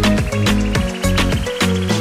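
Background music: an upbeat dance track with a steady, driving beat and bass.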